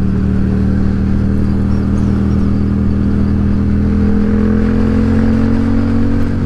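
Yamaha XSR700's parallel-twin engine running while riding, its pitch rising slowly over the last few seconds as the bike gathers speed, over a steady rush of wind noise.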